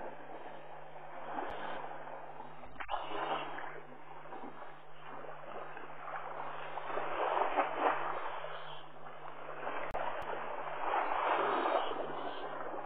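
African bush elephant feeding at very close range, pulling up and chewing grass in a steady crackling rustle that swells twice, over a steady low hum. A sharp knock comes about three seconds in and two light clicks near the end.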